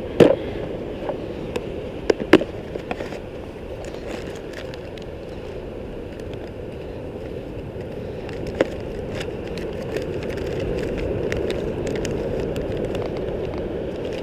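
Steady wash of beach surf, swelling slightly near the end, with a few sharp clicks and knocks from handling fishing gear near the start, about two seconds in and about eight seconds in.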